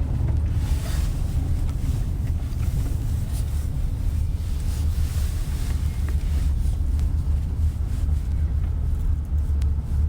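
Mercedes-Benz GLS 580 SUV on the move: a steady low rumble of road and engine noise heard inside the cabin.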